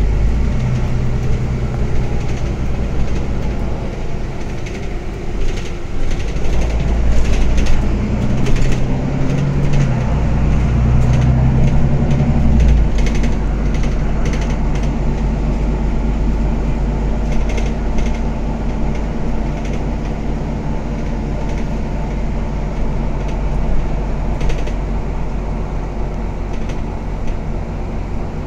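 Interior of a moving city bus: the low hum of the drivetrain and road noise, with occasional short clicks. The low note shifts in pitch a few times in the first dozen seconds, then settles into a steady drone.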